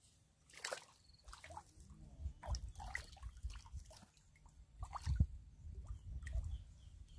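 Water splashing and dripping as a hand works in the shallows at the water's edge: a run of small, irregular splashes and drips, the loudest about five seconds in.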